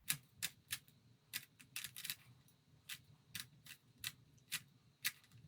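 Faces of a plastic Rubik's Cube being turned by hand: a string of about a dozen sharp clacks at an uneven pace, some close together.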